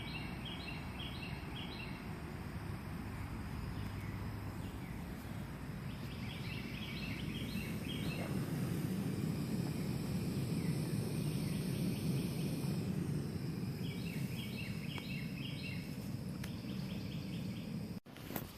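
Steady outdoor rushing noise with a bird singing a short run of quick high chirps three times, several seconds apart. The sound cuts out briefly near the end.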